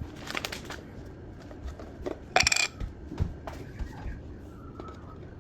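Small hard objects clicking and rattling, with one sharp, ringing metallic clink about two and a half seconds in, like a coin or piece of cutlery dropped onto a hard surface.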